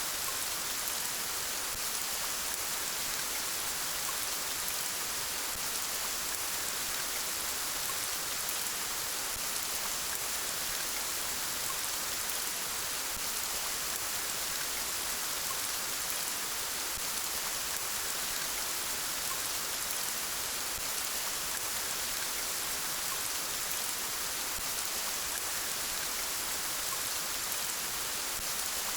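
Steady rain falling: an even, unbroken hiss, strongest in the high range, with no thunder or separate drops standing out.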